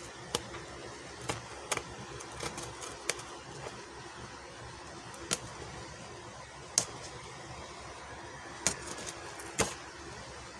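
Packaging of a small toy being handled and opened by hand: irregular sharp clicks and crinkles, about nine in all, over a steady background hiss.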